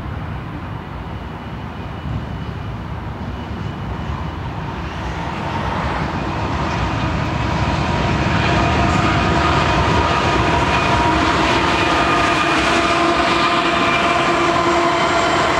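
A lashup of BNSF GE diesel locomotives, led by ES44DC 7349, approaching and passing at speed at the head of a double-stack container train. The diesel engines grow louder through the first half and then run steadily as the units go by, with several steady whining tones over the rumble.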